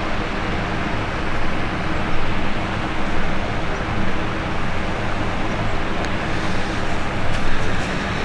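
Steady, even vehicle noise with a faint low hum.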